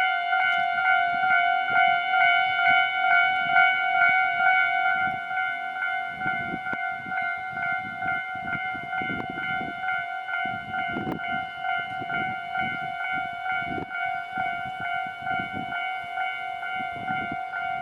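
Japanese level-crossing warning bell ringing in a fast, steady, repeating electronic clang. From about six seconds in, low rumbling thumps come in under it at irregular intervals, like a train's wheels rolling over the crossing.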